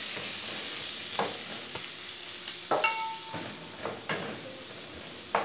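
Diced bacon and calabresa sausage sizzling in their own fat in a nonstick frying pan, stirred with a spoon. Scattered knocks of the spoon against the pan, and a short ringing clink about three seconds in.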